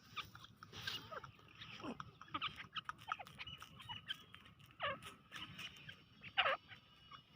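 Dakhni teetar, a grey francolin, calling: a string of short, sharp calls at irregular intervals, several of them sweeping downward in pitch, the loudest about six and a half seconds in.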